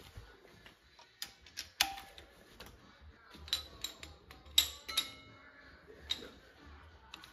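Hand ratchet and socket running down the rocker-shaft bolts on a Mopar 440 big-block cylinder head: irregular sharp clicks and metal taps, a few with a short metallic ring.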